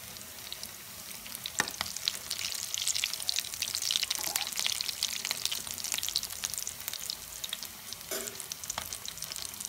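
Potato-stuffed bread rolls shallow-frying in hot refined oil in a pan: steady sizzling with dense crackling pops, busiest in the middle, and a couple of sharp clicks.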